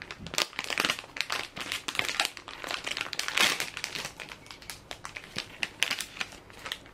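Foil-lined plastic candy packet crinkling as it is squeezed and pulled open by hand: a dense run of crackles, loudest about halfway through.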